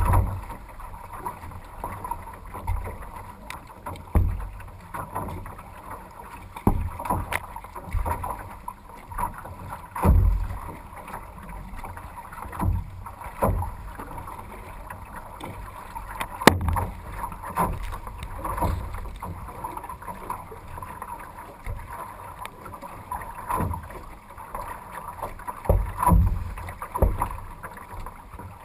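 Canoe being paddled through choppy lake water: a steady rush of water along the hull, broken by irregular knocks and splashy thumps every second or two as waves and paddle strokes hit the boat.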